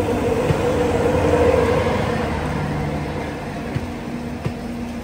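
Train passing on the next track: a steady diesel locomotive hum and rolling noise that swells about a second and a half in and then slowly eases, with a few scattered sharp clicks.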